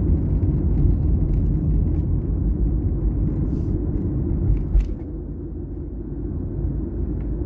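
Engine and road noise inside a moving car: a steady low rumble, with a brief knock about five seconds in, after which it runs a little quieter.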